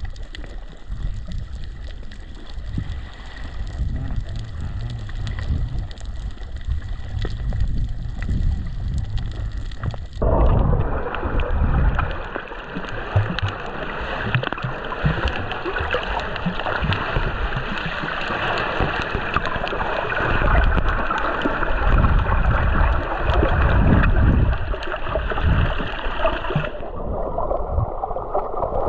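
Sea water sloshing and gurgling around a GoPro camera in the water, a steady wash with heavy low rumble. It changes abruptly about a third of the way in to a louder, fuller wash, and again near the end to a muffled one.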